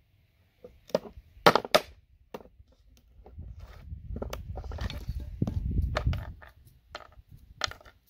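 Claw hammer tapping the end of a screwdriver set against a plastic RJ45 ethernet connector on a wooden board, knocking its pins out. Two sharp strikes about a second and a half in are the loudest, with lighter taps and clicks of plastic scattered through and a low rumble in the middle.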